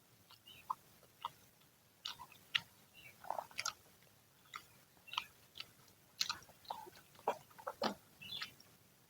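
Chewing and biting into freshly fried gorengan (Indonesian fritters), with irregular crisp crunches and wet mouth sounds.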